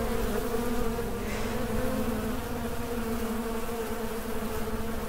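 Honeybee colony buzzing over an open hive: a steady hum of many bees at the exposed frames.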